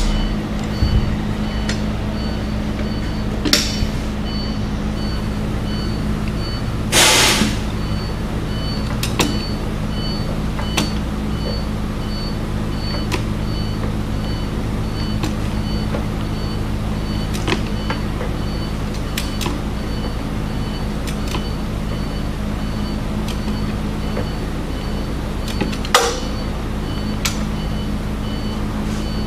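Small 12-volt electric pump running with a steady hum as it pushes oil into a Cummins ISX diesel engine to prelube it before first start. A high electronic beep repeats rapidly the whole time, with scattered clicks and knocks and a short burst of noise about seven seconds in as the engine is turned over by hand with a breaker bar.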